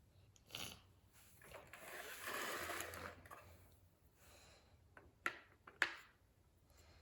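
Hands handling small plastic toys and containers: a rustling scrape that swells for about two seconds, then two sharp clicks a little over five seconds in.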